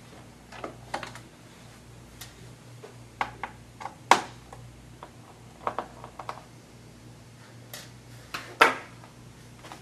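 Scattered small clicks and taps of a screwdriver and fingers working the screws and plastic cover of a laptop's hard-drive bay, with two louder knocks, about four seconds in and near the end, as parts are set down on the table.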